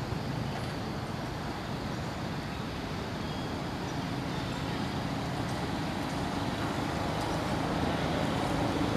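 Steady outdoor background noise: a low rumble with hiss and no distinct events, growing slightly louder near the end.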